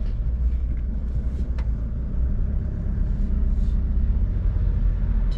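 Car running along with a steady low rumble of engine and road noise, with a few faint ticks over it.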